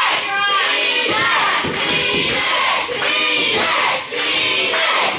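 Wrestling crowd with many children among it, yelling and chanting together as the wrestler plays to them.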